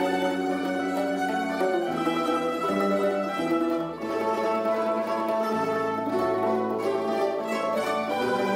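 A plucked-string ensemble of mandolins and guitars playing a piece together, with held chords moving from one to the next and a short dip in loudness about four seconds in.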